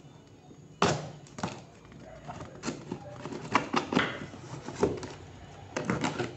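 Knife blade cutting through packing tape and the seams of a cardboard shipping box: a string of irregular scrapes and sharp clicks starting about a second in.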